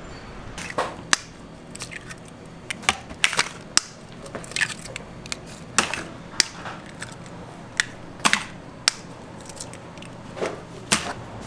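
Raw eggs being cracked by hand, one after another, over a plastic tub: a string of sharp eggshell cracks at an uneven pace, some in quick pairs.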